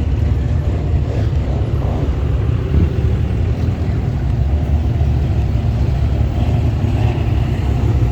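Street traffic of cars at a car show, a steady low engine rumble with no single event standing out.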